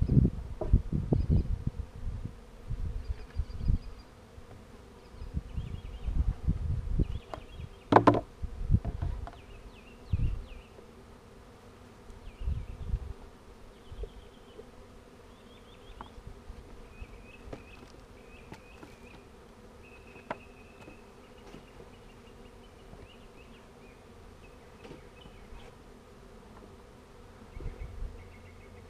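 Swarm of honeybees buzzing around an open hive, a steady hum. Low thuds and rumbles come and go over the first dozen seconds, with one sharp knock about eight seconds in.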